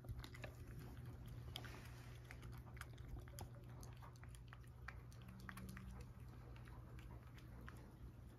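Domestic cat eating dry kibble mixed with Churu lick treat from a ceramic bowl: faint, irregular crunches and small clicks as it chews and licks.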